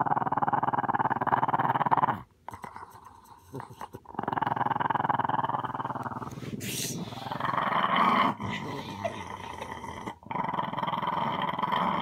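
Small dog giving a big, sustained growl that breaks off for about two seconds a couple of seconds in, then starts again and runs on with a short pause near the end.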